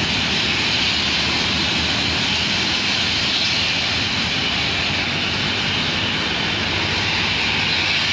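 A large vehicle's engine running under load: a steady, unbroken roar with a strong hiss.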